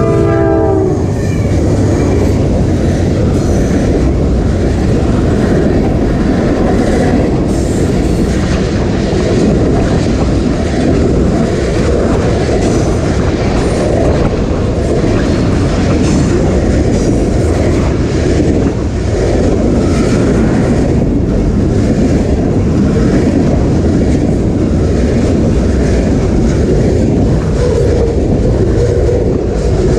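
A diesel freight locomotive passes right beside the microphone, its horn cutting off about a second in. Then comes the loud, steady rumble and clickety-clack of tank cars and freight cars rolling by at close range.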